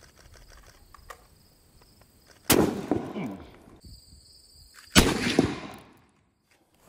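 Boys Mk I anti-tank rifle firing a .55 Boys round: two loud reports about two and a half seconds apart, each dying away over about a second.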